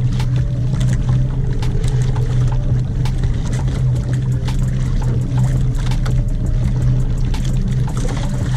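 Boat engine running with a steady low hum, with scattered sharp clicks over it.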